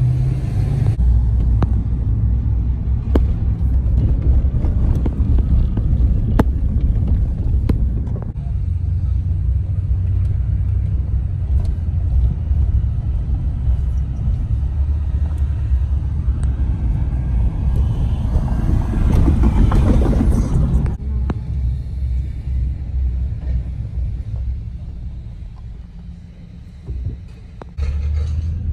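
Car driving, heard from inside the cabin: a steady low rumble of engine and road noise. It swells about twenty seconds in and drops to a quieter stretch near the end as the car slows.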